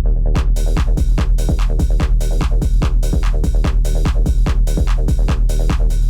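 Electronic dance music with a steady beat and heavy bass; bright high percussion cuts in about half a second in.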